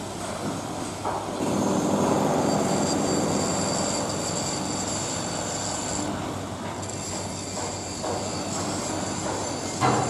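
Steady city traffic rumble; a heavy vehicle swells past about a second in and fades over the next few seconds, over a thin, steady high-pitched whine. A single sharp knock near the end.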